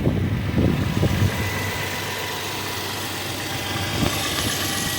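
2008 Toyota FJ Cruiser's 4.0-litre V6 idling steadily just after a new alternator has been fitted, with a few short knocks in the first second or so.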